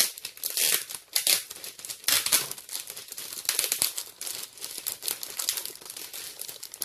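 Clear plastic gift wrapping crinkling and tearing in irregular bursts as it is pulled off a box by hand.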